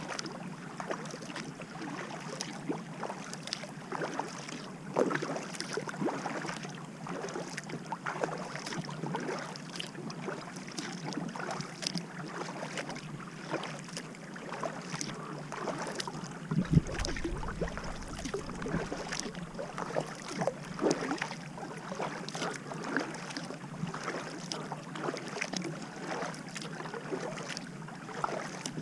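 Kayak paddle blades dipping and splashing in calm water in a steady stroke rhythm, with the hull's bow wave swishing and dripping between strokes. A brief low thump with a rumble comes a little past halfway.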